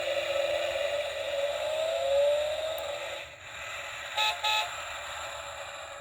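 Mini Cooper cuckoo clock's recorded car sound effect: a car engine running and revving up in pitch, then two short horn toots about four seconds in, thin and lacking bass as from the clock's small speaker.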